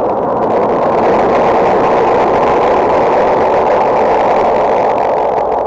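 Custom vocal-unit pedal running Valyrian reverb and delay together with the feedback turned up, making a loud, dense spacey wash of swirling noise with faint held tones underneath. It starts thinning out near the end.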